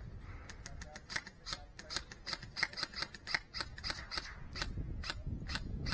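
Airsoft guns firing in a skirmish: a run of sharp, irregular clicks and snaps, several a second, thickest in the middle.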